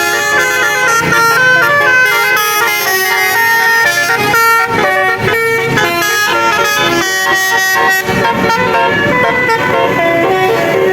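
Bus 'telolet basuri' musical air horn playing a song melody: a fast run of stepped horn notes, with a couple of short breaks between phrases.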